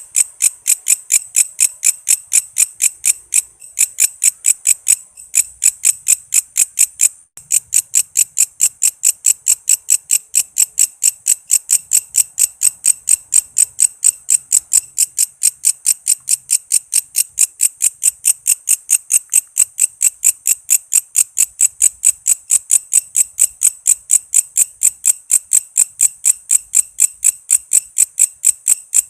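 Walang kece, a singing katydid, calling with rapid, evenly spaced high-pitched chirps, about four a second. The chirping breaks off briefly a few times in the first seven seconds, then runs on steadily.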